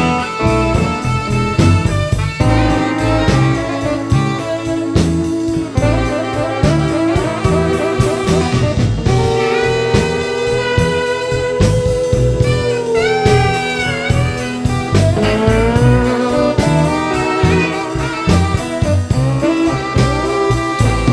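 Live blues band playing an instrumental passage, a saxophone carrying the melody with long held notes and pitch bends over electric bass, guitars and drum kit.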